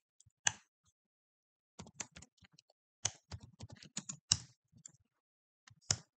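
Typing on a computer keyboard: irregular runs of keystrokes, with a few louder single strokes standing out.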